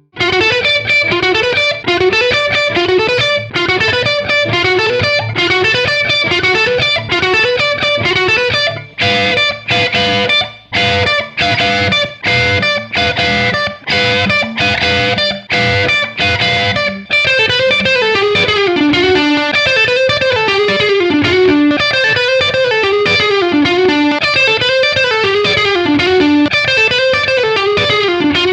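Electric guitar, a Gibson Les Paul with PAF-style humbucker pickups, playing a lead passage. It opens with quick rising runs, has a middle stretch of short chopped chords with breaks between them, then turns to flowing melodic lines again.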